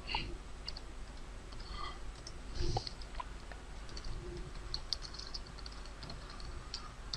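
Typing on a computer keyboard: scattered, faint keystrokes.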